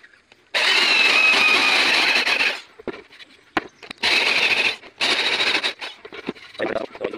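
Electric drill boring a hole through a wooden tabletop: one run of about two seconds, then two shorter runs close together, followed by a few light knocks near the end.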